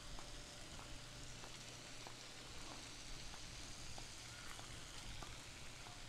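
Faint steady outdoor hiss with light, regular footsteps on a concrete walkway, a little under two steps a second.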